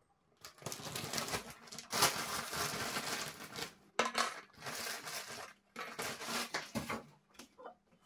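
Handling noises on a hard countertop: a string of rustling, scraping stretches about a second each, with sharp clinks about two and four seconds in.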